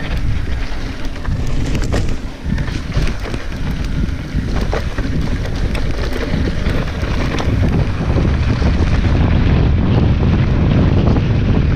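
Wind buffeting the action camera's microphone as a mountain bike rolls down a dry dirt trail, with scattered clicks and knocks from the tyres and bike over loose stones. The wind rumble grows louder near the end.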